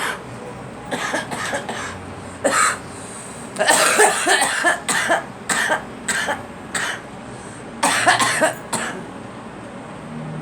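A girl coughing in repeated harsh fits: several coughs about a second in, a longer run of coughs from about four to seven seconds in, and another cluster near eight seconds.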